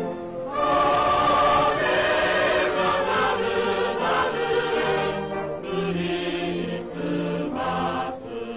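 Choir singing sustained chords over orchestral accompaniment on an old film soundtrack, with a brief dip just after the start.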